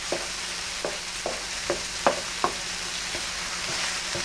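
Eggs sizzling on a non-stick electric griddle plate while a spatula chops and mixes them, tapping the plate about six times in the first two and a half seconds; the steady sizzle carries on after the tapping stops.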